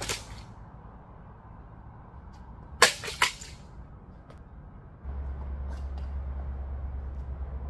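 A real sword (jingeom) swung at a cutting target: the tail of one cut right at the start, then a sharp swish-and-cut about three seconds in, followed quickly by two smaller hits. A steady low rumble sets in about five seconds in.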